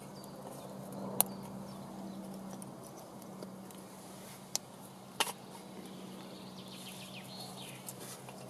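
Small wood fire burning, with three sharp pops from the burning sticks, about a second in and twice around the middle. A steady low hum runs underneath, and birds chirp faintly.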